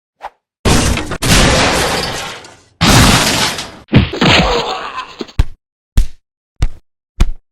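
Fight sound effects: three long crashing impacts, each with a noisy tail that dies away over a second or more, then four short, sharp punch-like hits about 0.6 s apart.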